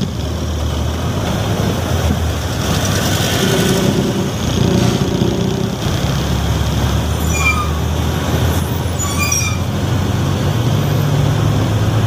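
Heavy truck's diesel engine running at low speed in slow traffic, heard from the cab, with a couple of brief high squeaks partway through.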